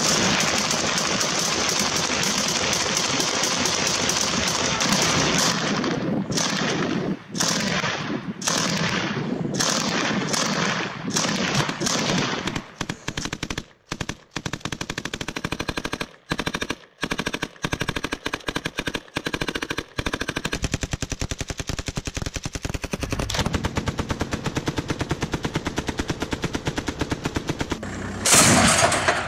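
Automatic gunfire from assault rifles and a belt-fed machine gun: long rapid bursts, broken by short gaps in places, and then a steady stream of fire. A single louder blast comes near the end.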